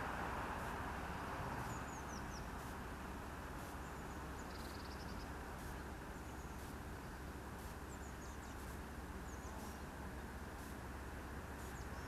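Small birds giving short, high chirps every second or two over a steady low rush of background noise. The rush is louder at the start and eases over the first two seconds.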